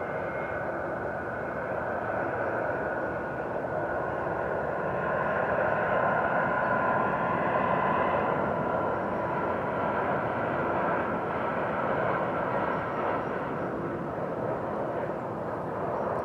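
Boeing 757-200 on final approach with its gear down: a steady jet engine whine with a few tones that slowly fall in pitch. It grows louder to a peak around the middle, then eases off as the airliner goes past.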